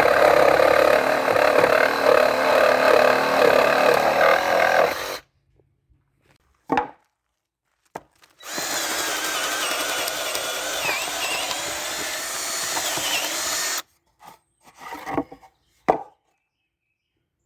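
Ryobi One+ cordless power saw cutting wood in two runs. The first cuts off suddenly about five seconds in, and the second runs from about eight and a half to fourteen seconds in. There are a few short knocks in the gaps and just after.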